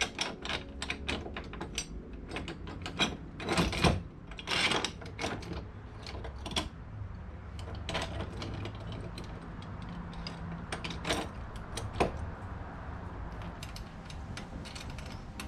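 Irregular metallic clicks, clinks and knocks of hand tools and hardware being worked on a boat's steering linkage. There is a cluster of louder knocks around four to five seconds in and a single sharp knock about twelve seconds in.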